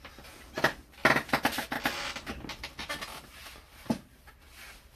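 Trading cards being handled and slid against one another, a run of scratchy rustling and sliding strokes that fades out about four seconds in.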